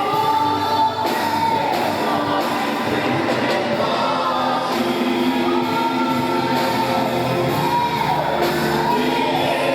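Live gospel worship song: several voices singing long held, gliding notes over instrumental accompaniment.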